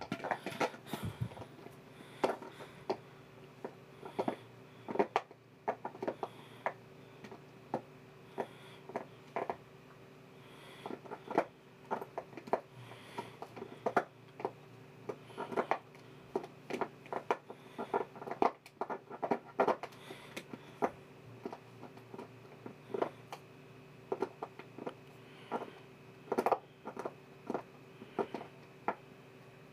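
A husky gnawing at the tightly screwed-on cap of a plastic soda bottle, trying to twist it off. Its teeth make irregular clicks, crackles and scrapes on the plastic, over a faint steady hum.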